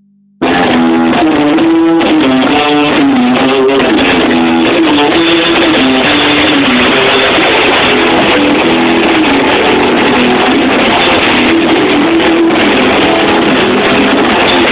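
Live rock band playing loud, with electric guitar carrying a melodic line; the music cuts in abruptly about half a second in.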